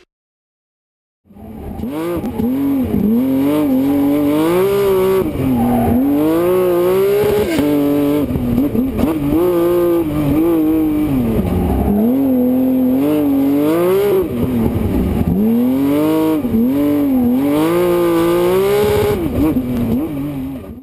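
Porsche 911 GT3 rally car's flat-six engine driven hard, starting about a second in: the pitch climbs and drops back sharply again and again as it shifts through the gears, with a few deeper dips where it comes off the throttle and picks up again.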